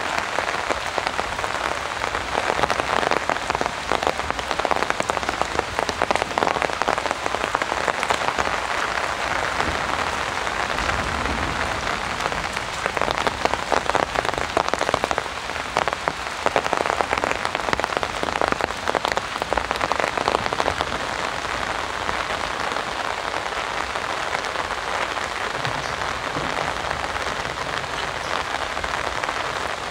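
Heavy rain falling steadily, a dense hiss of countless drops hitting the ground and nearby surfaces.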